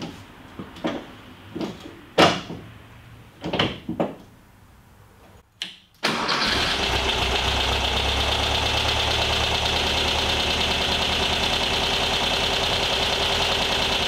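A few scattered knocks and clunks, then about six seconds in the 1973 VW Thing's air-cooled flat-four engine starts abruptly and settles into a steady idle.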